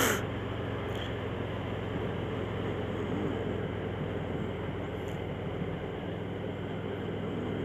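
Cruiser motorcycle engine running steadily at an easy road speed through a curve, with wind and road noise, an even hum without changes in pitch.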